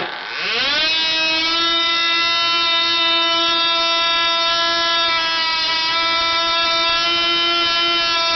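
Picco 12 Turbo model glow engine (ABC three-port, turbo plug head) catching and revving up in about a second to a steady, high-pitched full-power scream, swinging an APC 7x4 propeller at about 20,600 rpm.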